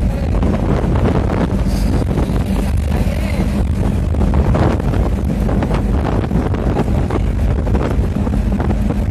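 Bus moving at speed, heard from inside the passenger cabin: a steady drone of engine and road noise, with wind buffeting the phone's microphone at the window.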